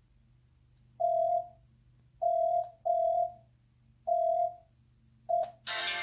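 Sony Xperia Z ringtone preview: a plain electronic tone at one pitch beeps five times in an uneven rhythm, the last beep short. Just before the end, another, fuller musical ringtone starts.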